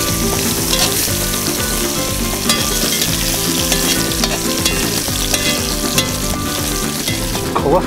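Paprika-dusted chicken pieces sizzling steadily as they fry in oil in a cast-iron pot, with short clicks of metal tongs turning them against the pot.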